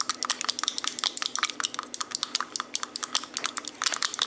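Pink plastic stirring rod clicking rapidly and irregularly against the sides of a small plastic beaker as it stirs a thick white cream mixture.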